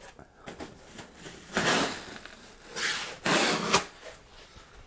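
Packing material being pulled and shifted inside a large 3D printer shipping box, rubbing and scraping. Three rough rubs come in the middle, the last the longest.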